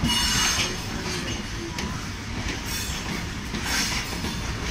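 A passenger train running along the track, heard from an open coach doorway: a steady rumble of steel wheels on rails with clattering that recurs every second or so, and a faint squeal near the start.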